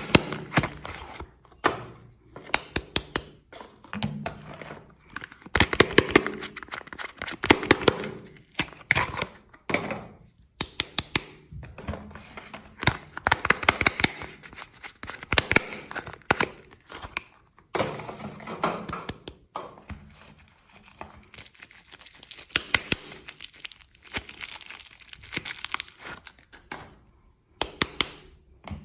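Wrapping crinkling and tearing as bars of soap are unwrapped by hand, in irregular bursts full of sharp clicks and taps.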